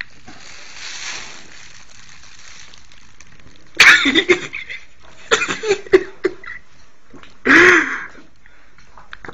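A person's short vocal outbursts, like laughter and coughing: a loud burst about four seconds in, a string of shorter ones around five to six seconds, and another loud burst near the end.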